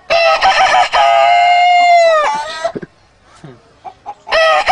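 A man imitating a rooster's crow with his voice: one long crow that wavers at first, holds steady, then falls off at the end. A second crow starts near the end.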